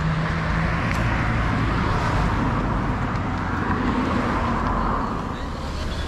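A car driving past on the street, its noise swelling to a peak about four seconds in and then fading.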